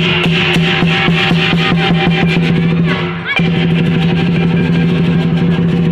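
Music with a fast, even beat of drum and cymbal strikes over a steady held low note, breaking off briefly about three seconds in.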